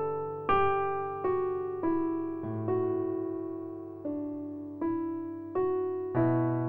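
Background music: slow, gentle solo piano, single notes or soft chords struck about once a second, each left to ring and fade.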